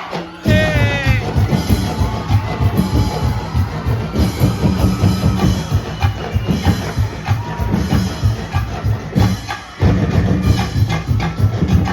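Loud, drum-heavy street-dance music with dense, fast drumming. It starts abruptly about half a second in with a brief warbling high note, drops out for a moment near the end, and then picks up again.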